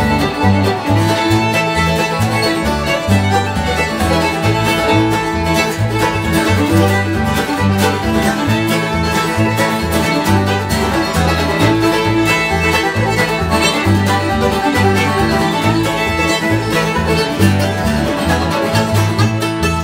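A live acoustic bluegrass band playing: banjo, fiddle and acoustic guitar over an upright bass plucking steady low notes.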